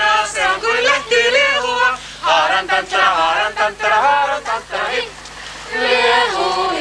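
A group of mixed voices singing a song together, holding long notes between shorter sung phrases, with brief breaks about two seconds in and again about five seconds in.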